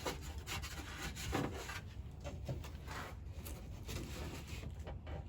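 Irregular rubbing and scraping of hands working plastic light parts and wiring into a truck bed's light housing, in short uneven strokes.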